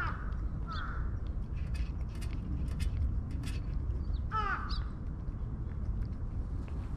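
A crow cawing: three short calls, one at the start, one just under a second in and one a little after four seconds. A few sharp clicks fall in between, over a steady low rumble.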